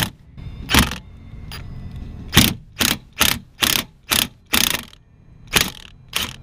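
Impact wrench with an 11/16 socket fired in about ten short bursts, zipping the nut off the steering intermediate shaft's upper joint pinch bolt while the bolt head is held with a wrench.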